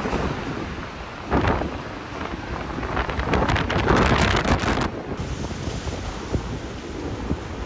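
Hurricane wind and driving rain buffeting a security camera's microphone in gusts: a short blast about a second and a half in, then a long, louder gust from about three to five seconds in. The sound changes abruptly about five seconds in.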